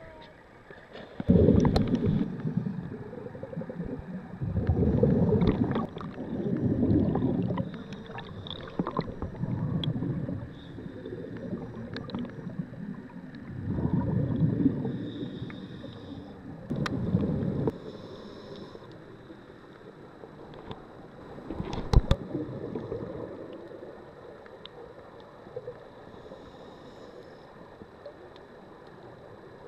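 Scuba regulator exhaust bubbles heard underwater: a low rushing gurgle with each exhalation, coming in bursts of a second or two every few seconds, with quieter stretches between. A sharp click sounds about two-thirds of the way through.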